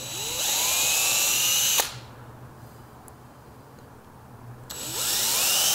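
Cordless drill boring holes: its motor whine rises as it spins up, runs for about two seconds and stops sharply. After a pause of about three seconds it starts again near the end.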